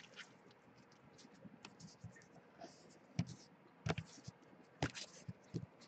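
Faint, scattered clicks and light scrapes of hands handling things on a desk, a few sharper ticks about three, four and five seconds in.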